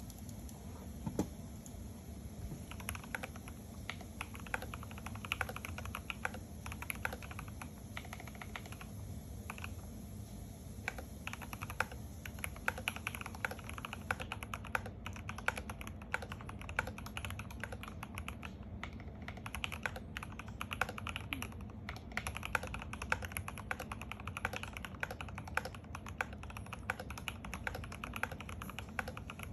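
Typing on a GMMK Pro mechanical keyboard with a brass plate, stock foam, Cherry-profile keycaps and Everglide Aqua King v3 linear switches lubed with Krytox 205g0: a stream of keystroke clacks, a few scattered strokes at first, then fast continuous typing from about three seconds in.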